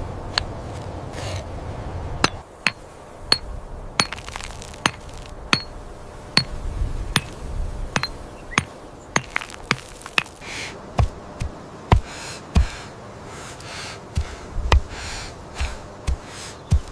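An irregular series of sharp knocks, about one or two a second, many with a short high ring, like hard objects struck together. In the second half heavier thuds come in, with some scraping between them.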